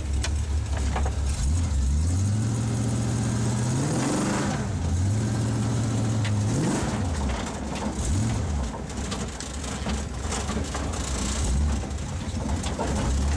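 Ford 351M V8 breathing through open dual 3-inch exhaust pipes, heard from inside the cab of a moving 1948 Ford F1 pickup. The engine revs up and falls back three times, runs low and steady for a few seconds, then revs up again near the end.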